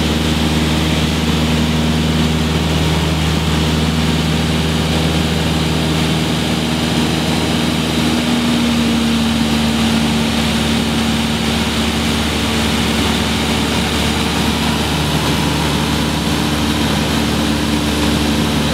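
Steady drone of a high-wing light aircraft's propeller engine, heard from inside the cabin, its pitch shifting slightly about eight seconds in.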